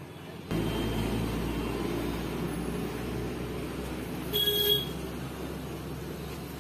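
Steady machine running noise that gets suddenly louder about half a second in, with a short high beep at about four and a half seconds.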